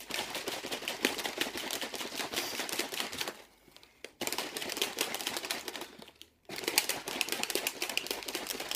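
Plastic protein shaker bottle shaken hard to mix protein powder into a shake: a fast clattering rattle in three bouts with two short pauses between them.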